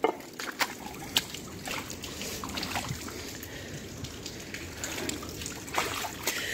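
Shallow river water trickling and sloshing, with a few faint clicks and drips, and a small splash near the end.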